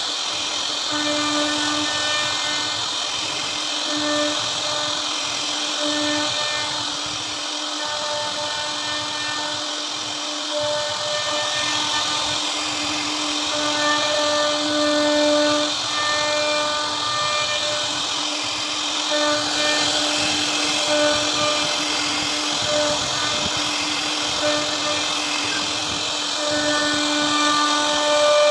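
CNC router spindle running with a steady, high whine as its bit carves a relief pattern into a wooden board, over a hiss of cutting.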